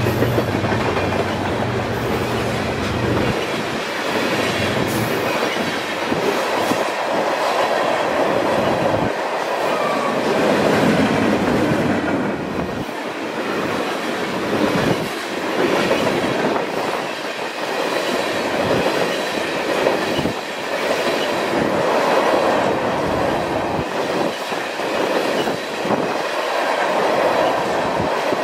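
A mixed freight train of double-stack container cars and ethanol tank cars rolling past, its wheels rumbling and clicking over the rail joints. A low hum underneath drops away about three seconds in.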